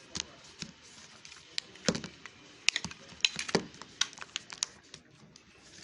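Plastic back cover being pressed and snapped onto a smartphone: a run of irregular sharp clicks and snaps, the loudest about two seconds in.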